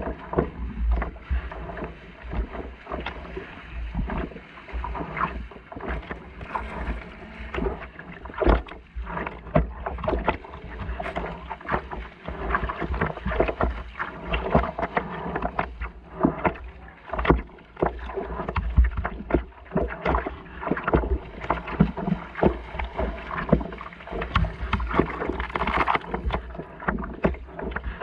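Small river ripples lapping and splashing against a stand-up paddleboard's hull, with irregular sharp slaps and knocks and a steady low rumble of wind on the microphone.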